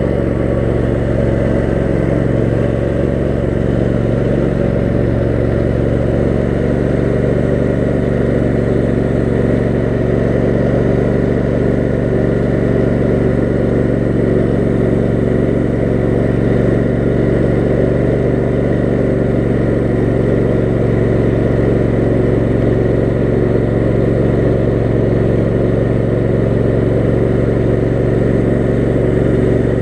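Kohler 18 HP Command engine of a lifted 6x4 offroad lawn mower running at a steady speed.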